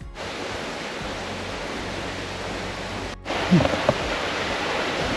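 Steady rushing water of a stream running through a gorge, in two clips cut together about three seconds in, the second a little louder.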